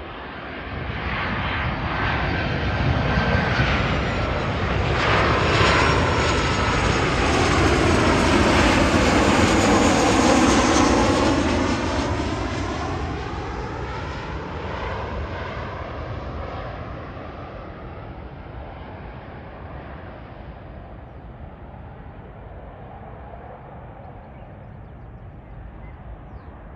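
Boeing 737-800 airliner on final approach, its CFM56 jet engines passing low overhead: the engine noise swells to its loudest around the middle, with a whine that drops in pitch as it goes by, then fades as the jet moves away toward the runway.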